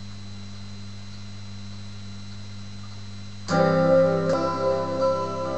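A steady low hum, then about three and a half seconds in an acoustic guitar starts playing, its chords ringing on with fresh strokes after.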